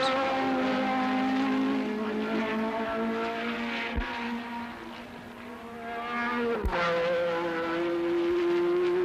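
Open-wheel racing car engines at high revs, a steady note that fades away about five seconds in. A sharp click then brings in another car's engine on a higher, steady note.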